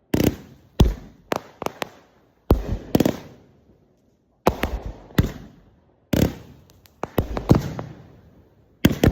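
Consumer fireworks going off: a string of sharp bangs at uneven intervals, sometimes two or three in quick succession, each fading out over a second or so.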